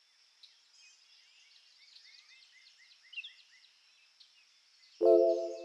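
Faint songbirds chirping, a run of short falling chirps. About five seconds in, louder music starts with a sustained chord.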